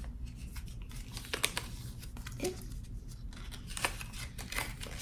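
Paper yarn label being slid off a cake of yarn and unrolled in the fingers: light, scattered paper rustles and crinkles.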